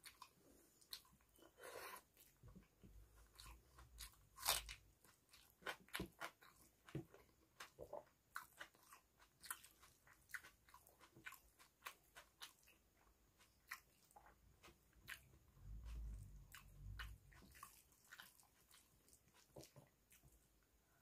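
Close-miked chewing of rice and dal eaten by hand: many small wet mouth clicks and smacks, a few a second. A low muffled rumble comes twice, about three seconds in and again about sixteen seconds in.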